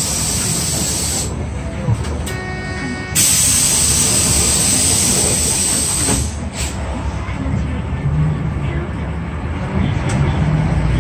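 City bus interior: a steady air hiss from the bus's pneumatic system runs until about a second in. After a steady tone of about a second, a second hiss lasts about three seconds. A low engine rumble runs underneath and grows louder near the end.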